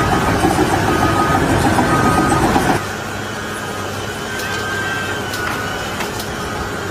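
Heavy vehicle or machine running loudly while a reversing alarm beeps repeatedly, cut off suddenly about three seconds in. A quieter steady hum with a few clicks follows.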